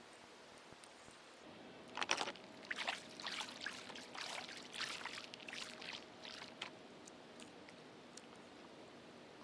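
Water splashing and trickling in a run of irregular splashes lasting about five seconds, the loudest about two seconds in.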